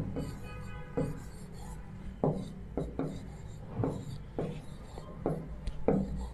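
Marker writing on a classroom board: a run of short scratchy strokes and taps, roughly one or two a second, over a steady low hum.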